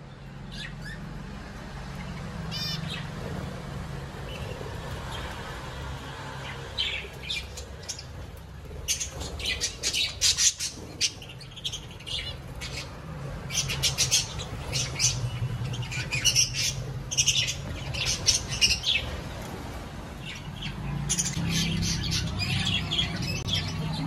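A flock of budgerigars chattering, with quick high chirps and squawks that come thick and fast from about a third of the way in, over a low steady hum.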